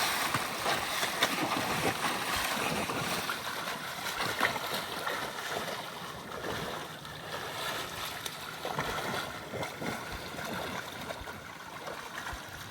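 Water sloshing and splashing, a continuous rushing noise that slowly fades.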